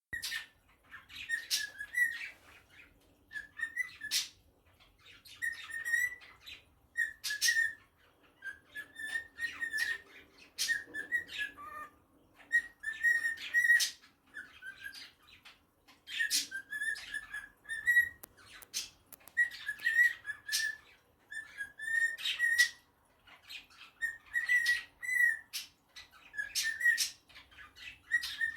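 Cockatiel singing: short whistled warbling phrases at a fairly steady pitch, broken up by sharp clicking chirps, repeated in bursts every second or two.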